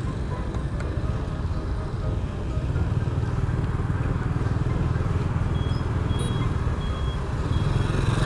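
Street traffic with motorbike engines and a steady low rumble, heard on the move through a busy street. From about five and a half seconds in, a series of short, evenly spaced high beeps sounds over it.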